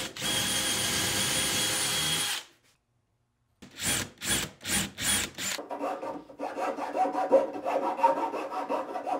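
DeWalt cordless drill running steadily for about two seconds, then about five short trigger bursts as a twist bit bores into a pine board. After that, an uneven scraping rub of a thin metal rod worked back and forth through the freshly drilled hole in the wood.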